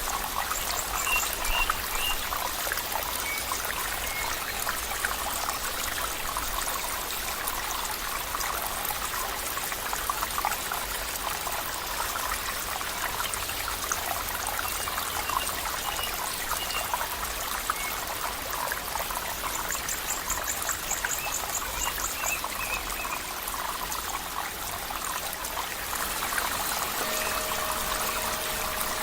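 Water trickling and flowing steadily, like a small stream, with a few short high chirps scattered through it and a quick ticking trill about two-thirds of the way in. Near the end two steady low tones come in.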